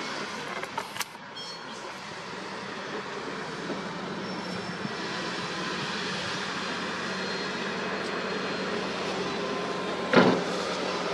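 Diesel engines of a wheel loader and dump trucks working: a steady engine hum that grows a little louder over the first few seconds. A single loud knock comes about ten seconds in.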